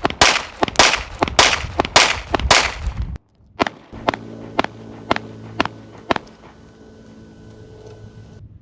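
Pistol fire on a range: a rapid string of about a dozen shots, then after a brief break about six quieter shots, evenly about half a second apart.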